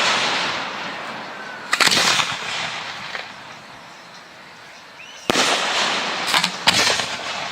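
Display fireworks going off: sharp bangs, each followed by a fading rush of noise. One comes about two seconds in, another at about five seconds, and several more follow in quick succession near the end.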